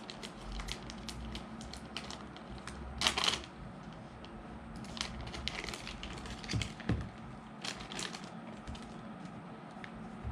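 Plastic parts being handled and clipped together as a drone-fishing release is fitted to a drone: scattered light clicks, taps and rustles, with one louder click about three seconds in. A faint steady hum runs underneath.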